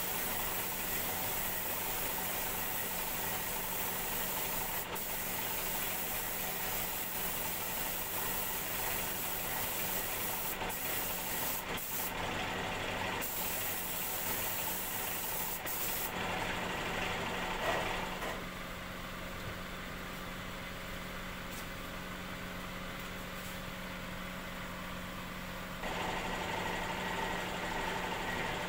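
Spray-painting equipment running: a steady motor hum under a broad hiss of air. The hiss thins out a little past halfway, drops lower a couple of seconds later, and comes back fuller near the end.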